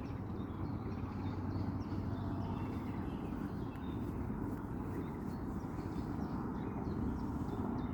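Songbirds chirping and singing faintly in short scattered phrases over a steady low rumble.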